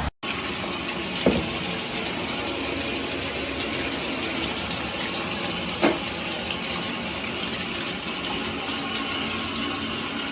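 Water gushing in a steady rush, with two brief knocks, one about a second in and one near the middle.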